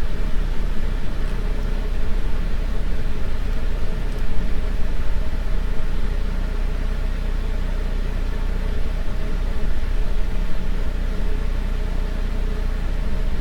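Steady low hum with a stack of even overtones under a layer of hiss, unchanging throughout.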